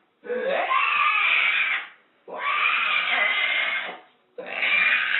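An animal calling: three long, noisy, screeching calls of about a second and a half each, with short pauses between them.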